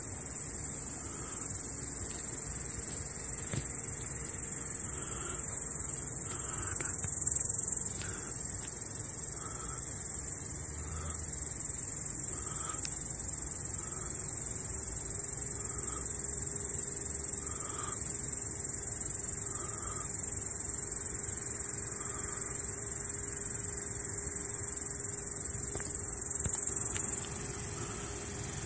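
Crickets chirring in a continuous high-pitched buzz, which swells briefly twice.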